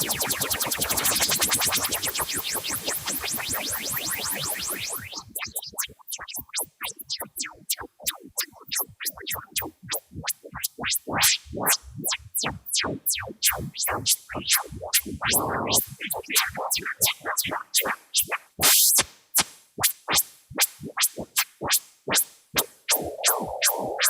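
White noise from a test oscillator run through a neural-simulation synth plugin, chopped into rapid clicking pulses over a noise wash. About five seconds in the wash drops away, leaving sparse, irregular noise clicks a few per second, some coloured to different pitches. Near the end a steady band of mid-pitched noise comes in.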